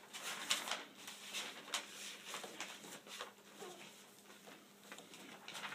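Rustling and light, irregular tapping of a paper puppet being handled and lowered behind a play tent, busiest in the first couple of seconds.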